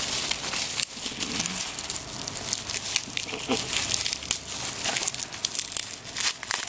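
Bubble wrap and plastic packaging being handled and pulled apart by hand: a continuous, irregular crinkling and crackling.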